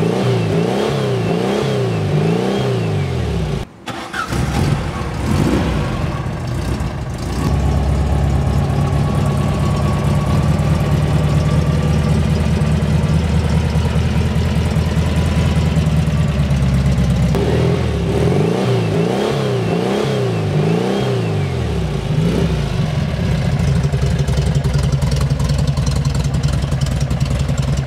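The 1915cc flat-four engine of a Porsche 356 Speedster replica, breathing through dual Weber downdraft carburettors and a dual exhaust. It is revved in a run of quick throttle blips at the start and again about two-thirds through, and runs steadily in between and toward the end.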